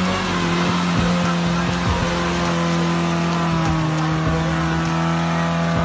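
Suzuki 4x4 SUV's engine held at high revs as it claws up a muddy trail with its wheels spinning: a steady drone that sags slowly in pitch, with scattered knocks from the tyres and bodywork.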